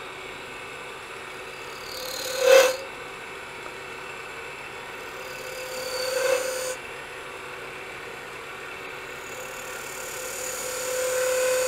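Caliper points scraping rings into a spinning wooden spindle on a lathe: three separate scratching marks, about two seconds in, about six seconds in, and a longer one near the end, each swelling and then stopping, over the steady running of the lathe.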